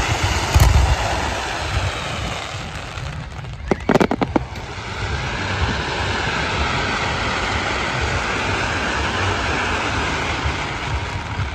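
Daytime fireworks display: ground fountains and smoke pyrotechnics giving a steady rumbling hiss. About four seconds in, a quick string of sharp bangs sounds as aerial shells burst.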